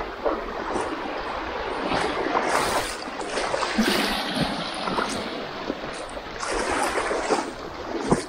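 Shallow water splashing and sloshing as someone wades across a rocky flat, in uneven surges about every half second to a second, with a steady trickling wash between them.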